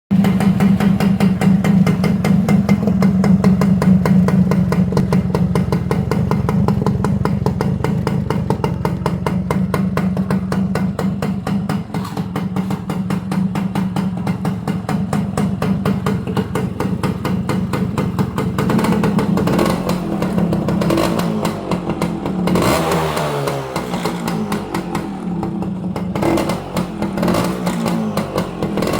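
Honda Smile motorcycle's single-cylinder four-stroke engine idling steadily through its exhaust, then blipped repeatedly from about two-thirds of the way in, the pitch rising and falling with each rev.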